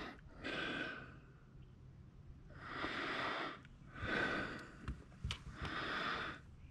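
A person breathing close to the microphone: four audible breaths, about one to one and a half seconds apart. A short sharp click comes about five seconds in.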